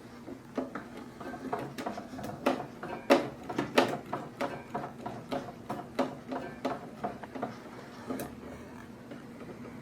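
Sewing machine being turned slowly by its hand wheel, its needle mechanism clicking and knocking irregularly, about two or three times a second, as the needle punches through paper; the clicking stops about eight seconds in.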